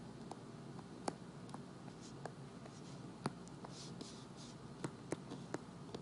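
Handwriting with a stylus on a tablet's glass touchscreen: faint, sharp taps as the tip touches down for each stroke, with a few brief scratchy strokes in between.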